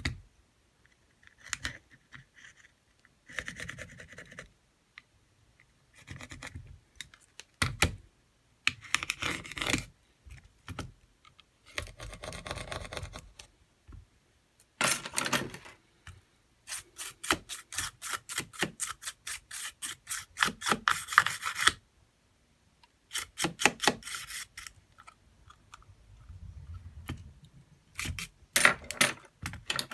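Metal pry tool scraping and rubbing along a smartphone's midframe in intermittent bursts, with a long run of rapid back-and-forth strokes about halfway through, plus handling of the phone and film on the repair mat.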